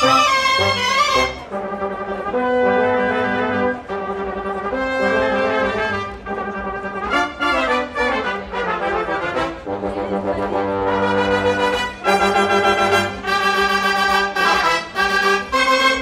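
Live small band playing: trumpet and trombone carry the tune in held notes and short phrases over an upright double bass.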